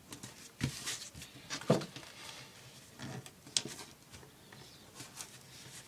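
Duct tape and plastic being handled and pressed down: scattered crinkles, rustles and light taps, with a brief falling squeak about two seconds in.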